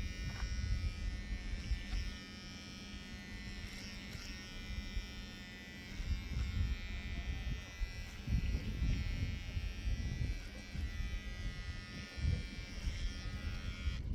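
A steady mechanical buzz, like a small electric motor running, made of several even tones, over uneven low rumbling.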